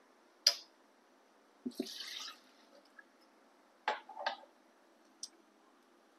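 Ingredients being put into a plastic blender jar by hand: a few separate knocks and clinks of spoon and containers against the jar, and a short pour lasting about half a second, with quiet between. The blender motor is not running.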